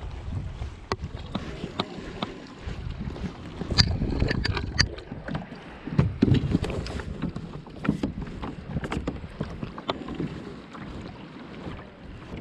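Wind buffeting the microphone and water sloshing against a plastic kayak hull: an uneven low rumble that swells and fades. Scattered sharp clicks and knocks run through it, thickest in the middle.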